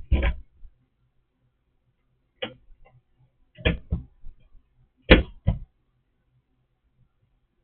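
A handful of short knocks and clunks, several in quick pairs, from things being handled and set down in a kitchen, over a faint low hum.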